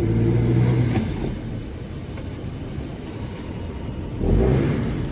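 Chevrolet Trailblazer's engine running as the truck is backed up, getting louder in the first second and again about four seconds in; it sounds like a sports car.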